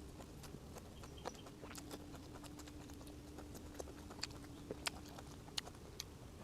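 Close-up eating of steamed squid: irregular sharp clicks and smacks of chewing, a few a second, over a faint steady hum.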